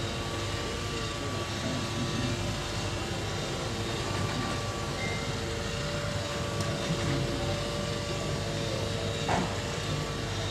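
A steady machinery drone with a constant hum, with one light knock near the end.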